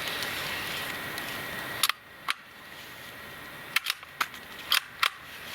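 Sharp metallic clicks from a Savage .22 rifle, a click on an empty chamber and the action being worked by hand, two about two seconds in and a quick run of five near the end. A steady rustling hiss stops just before the first click.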